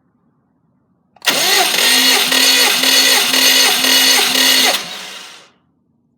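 Starter motor cranking a Subaru EJ205 2.0-litre flat-four engine for a compression test, without it starting. The cranking has an even surge about twice a second, runs for about three and a half seconds, then stops and winds down.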